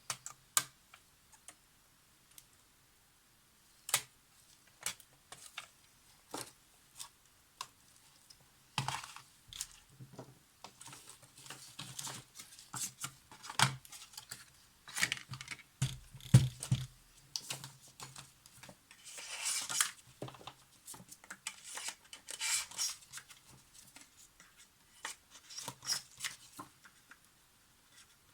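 Small objects being handled on a workbench. Scattered sharp clicks come throughout, and from about a third of the way in there are stretches of scraping and rustling.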